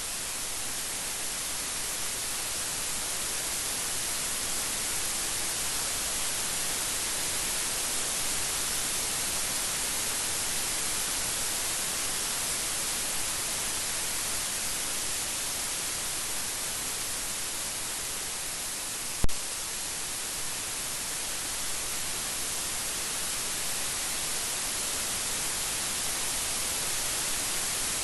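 Steady, even rain hiss, bright and high-pitched with no thunder. One sharp click cuts through it about nineteen seconds in.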